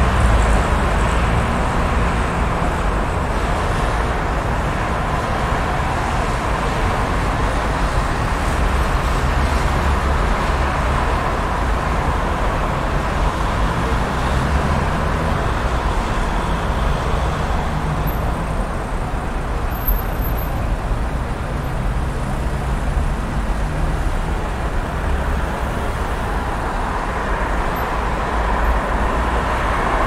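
Road traffic noise: a steady wash of passing motor vehicles with a deep engine rumble underneath, no single vehicle standing out.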